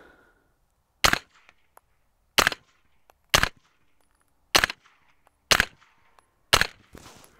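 Six suppressed shots from a Spikes Tactical Brown Recluse, an integrally suppressed 9mm AR carbine, fired semi-automatically about a second apart. Each shot is a short, sharp report.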